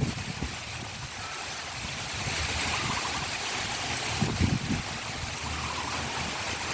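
Heavy rain falling steadily, with a gust of wind buffeting the microphone about four seconds in.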